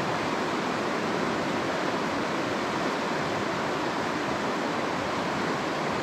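Shallow stony river running over rocks: a steady, even rush of water with no breaks.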